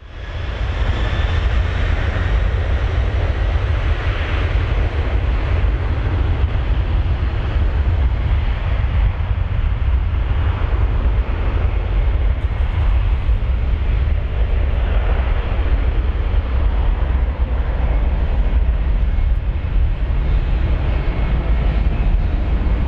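Airbus A300 freighter's twin turbofan engines running during a wet takeoff: a loud, steady deep rumble with an even rushing hiss over it, unchanged throughout.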